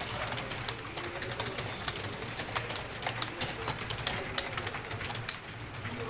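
Several computer keyboards being typed on at once: an irregular clatter of key clicks, several a second, over a steady low hum.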